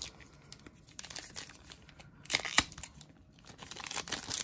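A stack of Digimon trading cards flipped through by hand: cards sliding and flicking against one another in short rustles, with a louder flurry of flicks about halfway through and more rustling near the end.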